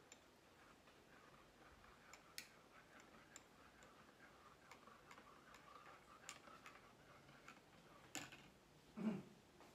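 Faint trickle of hot water poured from an electric kettle into a mug, with scattered light clicks. Near the end a click and then a dull thud as the kettle is set back down.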